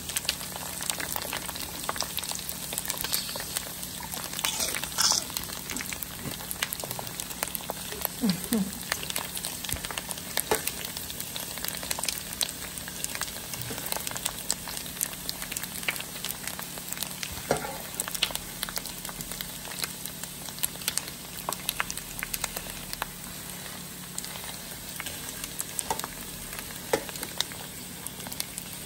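Pork skin pellets frying in hot oil as they puff into rinds: a steady sizzle, dense with small crackles and pops.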